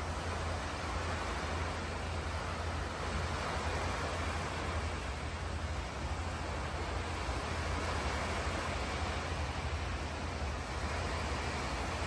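Small waves washing steadily onto a sandy beach, an even rushing hiss with a constant low rumble underneath.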